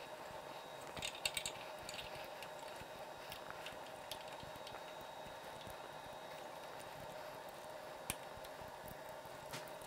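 Faint clicks and rustles of hands pushing a motorcycle voltage regulator and its wiring into place in the frame, a small cluster of clicks about a second in and single ticks later, over a steady faint hum.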